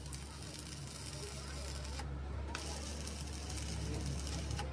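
Stick (arc) welding on steel plate: the electrode's arc crackles steadily over a low hum. The crackle drops out for about half a second around two seconds in, then resumes.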